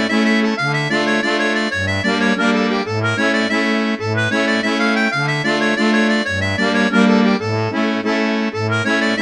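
MIDI playback of a North Azovian Greek dance tune. A quick synthesized melody runs over low bass notes and chords that alternate in a steady dance rhythm.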